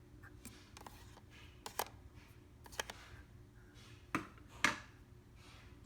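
Light handling noise: a few scattered clicks and taps with faint rubbing, the two loudest near the end; no sewing machine motor is running.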